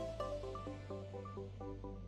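Background music: a quick run of short pitched notes over a steady held bass.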